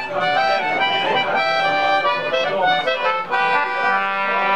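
English concertina playing a tune in single notes, then holding a long sustained chord from about three seconds in.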